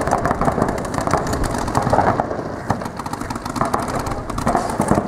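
Paintball markers firing rapidly during play, a dense stream of sharp pops from several guns at once.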